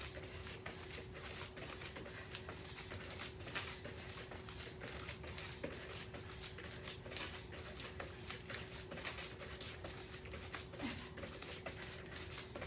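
Soft, irregular taps and thuds of a person doing plank jacks with shoulder taps and hip taps: feet hopping out and in and hands patting on the floor, over a faint steady hum.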